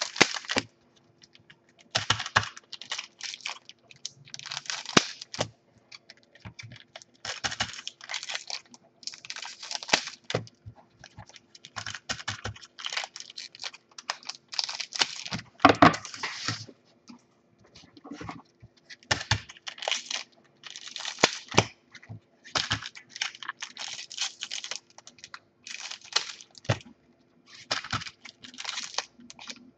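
Trading-card pack wrappers being cut open with scissors and handled: a run of short crinkly snips and crackles, one every second or two, with sharp clicks among them.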